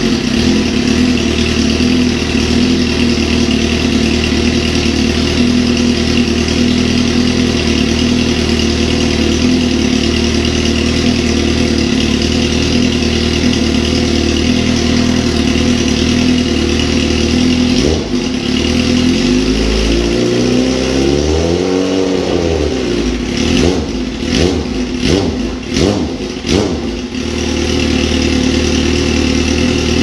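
Suzuki GSX-R 1000 inline-four motorcycle engine running through a CS Project aftermarket exhaust: it idles steadily, then about twenty seconds in is revved once up and back down, followed by a few quick throttle blips, and settles back to idle.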